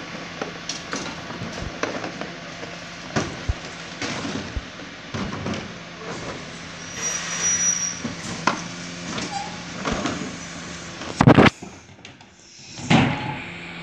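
Rear-loading bin lorry standing with its engine running in a steady hum, over repeated knocks and clunks of plastic wheelie bins being wheeled to and tipped by the rear lift. A brief hiss about seven seconds in, and two loud bangs near the end.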